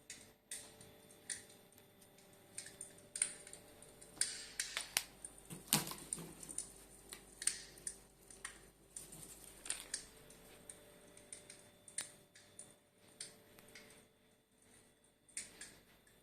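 Irregular sharp clicks and short crackles, one to three a second, over a faint steady hum.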